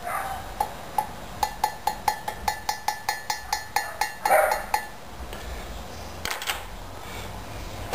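A plastic spoon knocking rapidly against a plastic bucket, about five knocks a second, as calcium hydroxide powder is stirred into vinegar. A louder short scrape follows about four seconds in, then a few light clicks.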